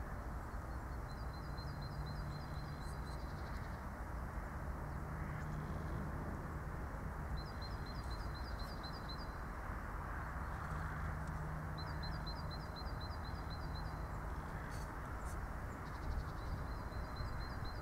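A small songbird sings four times, each a quick run of high notes alternating between two pitches, a few seconds apart. Under it runs a steady low outdoor background noise.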